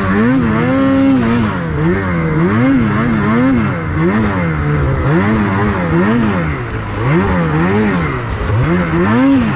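Snowmobile engine revving up and down over and over, about a dozen swells, as the throttle is worked riding through snow, with a steady hiss underneath.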